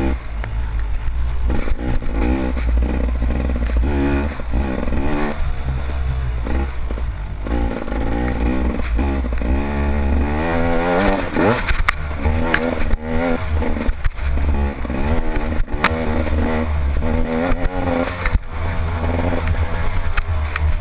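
Off-road racing engines revving, their pitch rising and falling many times over a steady low rumble, with occasional scraping and clattering.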